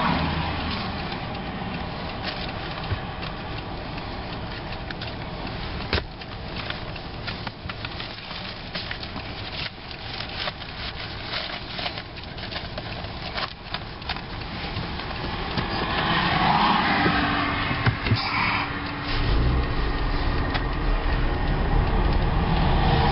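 Inside a car: papers and a folder being handled, with scattered rustles and clicks. About two-thirds of the way in, the car's engine and road noise rise steadily as it pulls away and drives.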